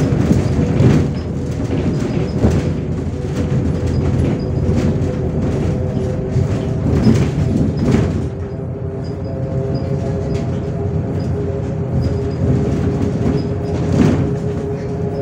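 Inside a moving MAZ 105 articulated city bus: steady engine and road rumble, with the body and fittings rattling and knocking over bumps and a faint steady whine underneath.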